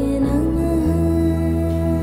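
Devotional Hindu song as background music: one long held note over a steady low drone.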